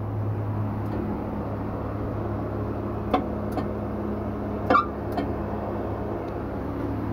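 Steady low machine hum, with a few light knocks and clicks, the sharpest a little before five seconds in.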